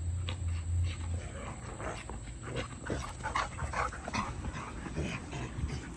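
Huskies playing, giving short yips and whimpers in a quick, irregular run. A low steady hum underneath stops about a second in.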